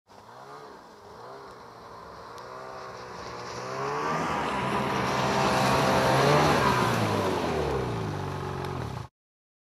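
Snowmobile engine approaching and revving, its pitch rising and falling as it grows steadily louder over several seconds, then cutting off suddenly about nine seconds in.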